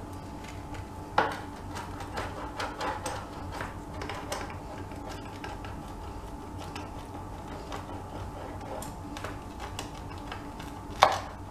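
Pizza wheel cutter rolling back and forth through a baked pizza's crisp crust on a wooden board, giving scattered crackling clicks. There is a sharper knock about a second in and another near the end.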